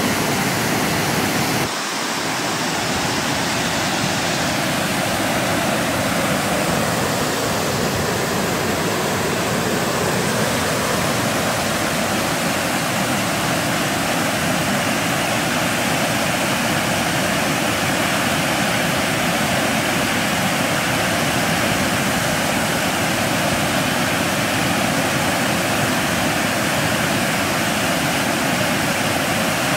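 Water pouring over a low river weir: a steady, full rushing, with a brief dip about two seconds in.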